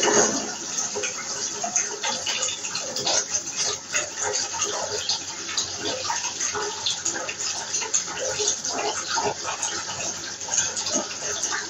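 Bath mixer tap running water into a bath: a steady splashing rush with small irregular gurgles.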